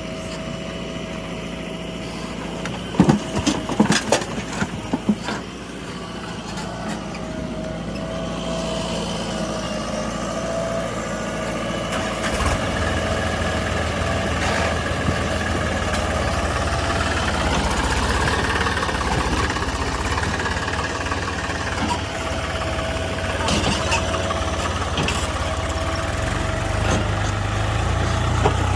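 Diesel engine of a JCB 3DX backhoe loader running while it digs and loads mud, with a steady whine over the engine note. There is a burst of clattering knocks a few seconds in, and the engine works harder and louder from about halfway.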